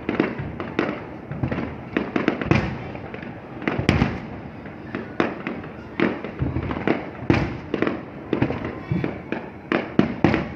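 Fireworks going off in a dense, irregular barrage, several sharp bangs a second with echoing booms between them.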